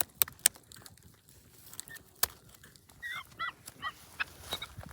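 Chickens giving a quick run of short calls about three seconds in, after a few sharp clicks and knocks.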